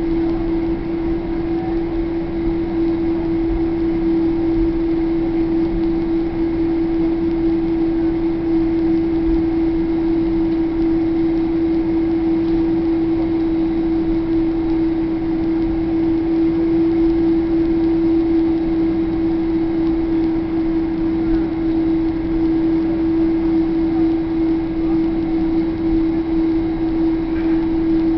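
Steady cabin noise inside a Boeing 767-300ER rolling along the runway after landing: a constant droning hum over a low rumble, unchanging throughout.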